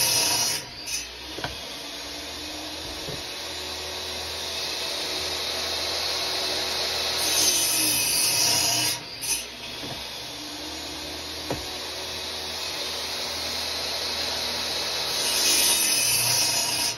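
DeWalt miter saw cutting through wood blocks one after another. One cut ends just under a second in, a second runs about seven to nine seconds in, and a third comes near the end, each stopping suddenly. A steadier, quieter running sound fills the gaps between cuts.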